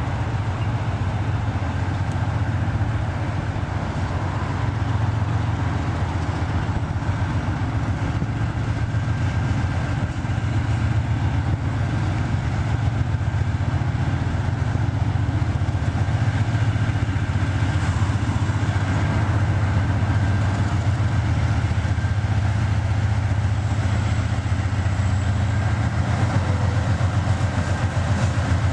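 Train running, a steady low rumble with a fast pulse, slowly getting a little louder.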